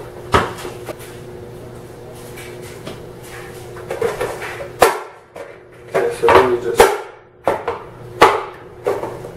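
Hard plastic knocks and rattles as a small cotton candy machine is set down on a stone countertop and its clear plastic bowl is picked up and handled, several sharp clunks spread through, over a steady low hum.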